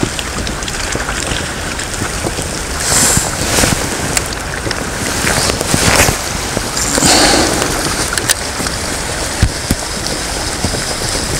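Steady wind buffeting the microphone over choppy water lapping, with a few short knocks and clicks scattered through.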